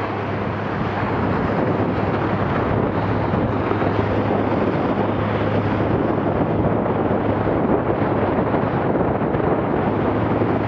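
Wind buffeting the microphone over the steady rush of water and spray along the hull of a Laser 2 dinghy sailing at about 9 knots.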